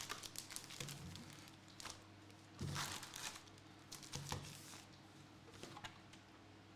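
Faint crinkling and rustling of trading-card pack wrappers being handled, in several short bursts with the strongest a little under three seconds in.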